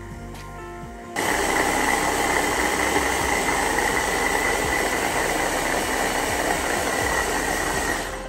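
Electric chopper's motor running, blending parsley and water into a liquid with a steady whir. It starts abruptly about a second in and cuts off near the end.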